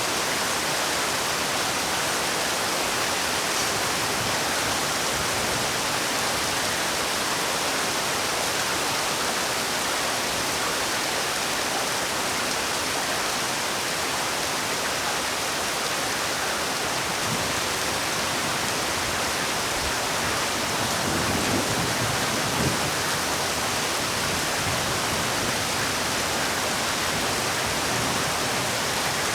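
Heavy rain falling in a steady, even hiss, with a brief slightly heavier patch about two-thirds of the way through.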